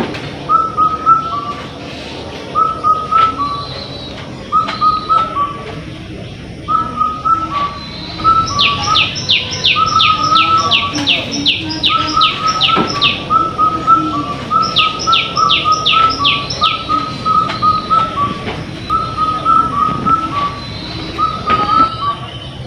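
Birds calling: a short whistled two-note phrase repeated every second or two, joined partway through by two runs of quick, sharp descending calls, about three a second.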